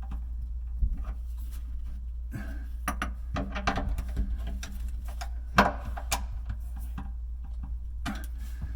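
Scattered light clicks and knocks, as of tools and hardware being handled, over a steady low hum. The loudest knock comes just past the middle.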